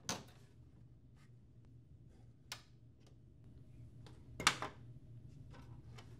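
Plastic front door of a Lexmark colour laser printer being unlatched and swung open: a sharp click at the start, another about two and a half seconds in, and the loudest, a quick double knock, about four and a half seconds in, over a faint low hum.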